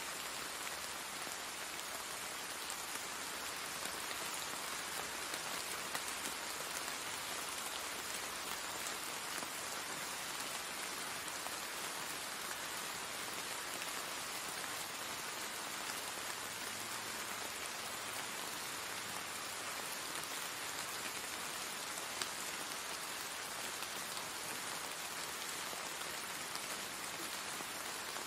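Steady rain falling on wet paving stones and garden plants, an even hiss with no let-up.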